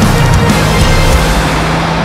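Loud background music.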